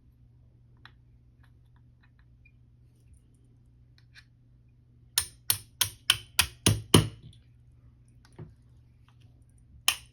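A quick run of about eight sharp metallic taps, roughly four a second, from a pin punch being struck to drive the trigger pin out of an AR-9 lower receiver. A few faint clicks come before it and two more taps near the end.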